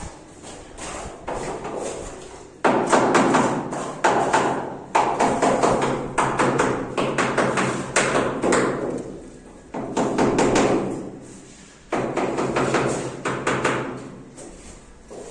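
Hand-tool work on tiles: bursts of rapid tapping and scraping knocks, each lasting a couple of seconds and fading out, repeated several times.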